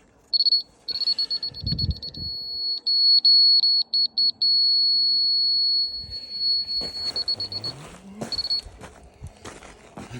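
High-pitched electronic alarm beeping on one tone, sometimes in quick pulses and sometimes held as a long steady beep for over a second, ending in fast pulses about eight seconds in.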